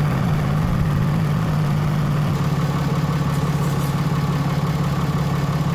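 Cummins turbo-diesel engine of a Ram heavy-duty pickup idling steadily, with an even fast pulse.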